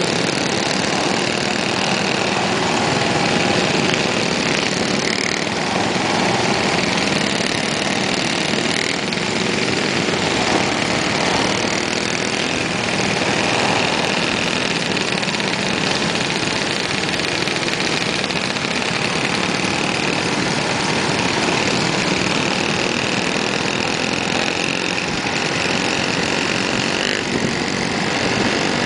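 Several Rupp minibikes' small single-cylinder Tecumseh engines running steadily together at cruising speed, heard from one of the bikes riding in the group.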